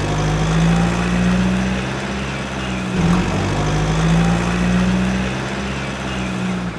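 Truck engine sound effect laid over a toy truck, running steadily with a low drone and a brief break about three seconds in.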